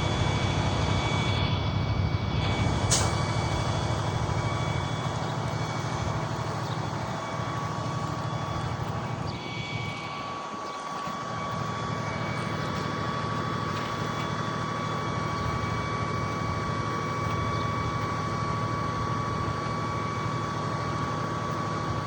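Crane truck's engine running steadily, with a steady high whine alongside; the engine sound dips briefly about ten seconds in, then picks up again.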